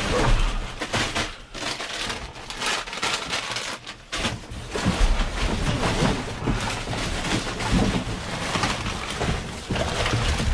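Crunching and rustling of trash bags and refuse being trampled and shifted while climbing out of a dumpster, with gusts of wind rumbling on the microphone.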